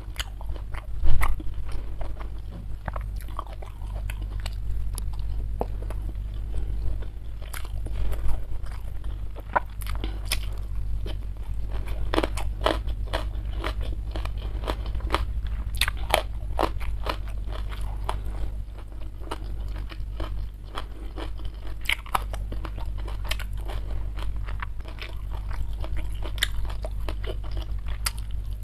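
Close-miked chewing, biting and mouth clicks of a person eating rice with salted fish and side dishes by hand, coming irregularly several times a second. A steady low hum runs underneath, and there is a single louder knock about a second in.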